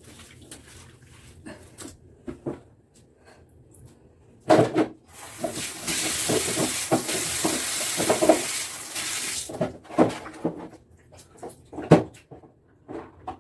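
Water running from a tap into the bathtub for about four seconds, a steady hiss. Knocks and clatter of scrubbing and handling things in the tub come before, during and after it, the sharpest about four and a half seconds in and near the end.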